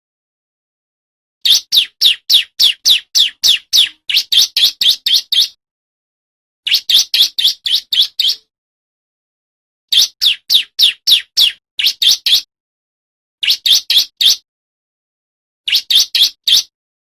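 Male bar-winged prinia (ciblek) singing: runs of sharp, high, evenly repeated chirps, about six a second, in phrases one to four seconds long with clean gaps between them.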